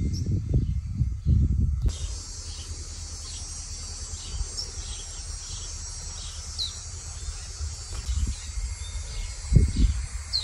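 Outdoor countryside ambience. Wind buffets the microphone with a gusty low rumble for about the first two seconds. Then a steady high insect drone takes over, with short bird chirps scattered through it, and wind gusts return near the end.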